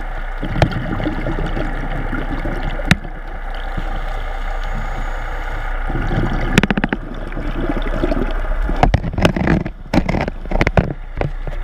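Underwater sound through a camera housing: a steady hiss, with a scuba diver's exhaled bubbles gurgling twice, and a run of sharp clicks and knocks near the end.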